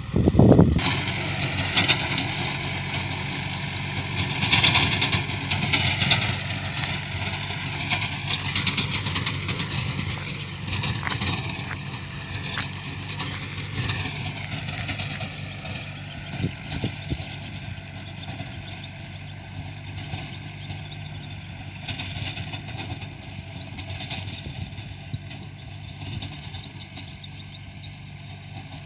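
An engine running steadily, its sound likened to a combine harvester's, with a high whine that slowly wavers in pitch over a low drone. A loud burst comes right at the start.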